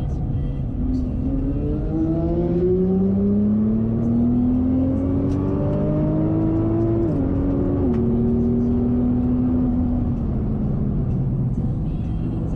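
Nissan GT-R R35's twin-turbo V6 heard from inside the cabin, accelerating hard with the pitch rising for several seconds, an upshift about seven seconds in, then pulling in the next gear before easing off near the end.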